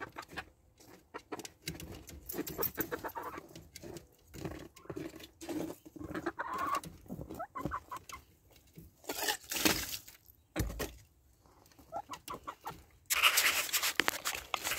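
Domestic hens clucking with short calls throughout, broken by a brief rustle about nine seconds in and a louder rustling noise starting near the end.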